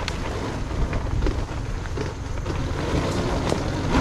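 Wind buffeting the microphone of a camera on a moving dirt bike, over a steady low rumble, with a few short clicks and knocks scattered through.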